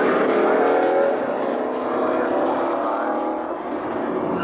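Muscle car engines revving at the drag strip's starting line, their pitch climbing in long sweeps.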